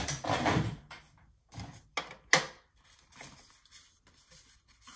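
Paper and cardstock being handled and shuffled on a plastic scoring board, with a second of rustling at the start. A few sharp taps and clicks follow, the loudest about two and a half seconds in, as the scissors and paper are set down and picked up.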